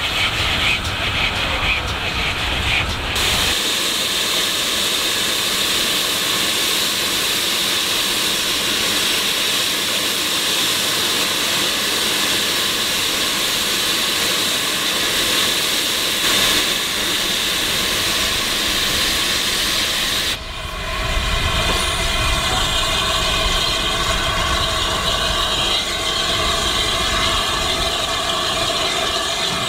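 Steam locomotive sounds from ex-GWR 42xx tank engine 4270, joined at two cuts: a steady hiss of steam from about 3 s to 20 s in, then a low rumble with faint steady tones.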